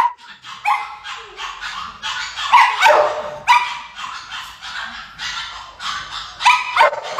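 A dog barking and yipping over and over in short, high calls that bend in pitch. The loudest calls come about three seconds in and again near the end.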